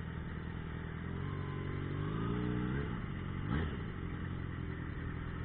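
Yamaha XJ6's 600 cc inline-four engine under way, its pitch climbing steadily under acceleration for about two seconds before dropping off sharply about halfway through. It is heard dull and cut-down through a faulty camera microphone.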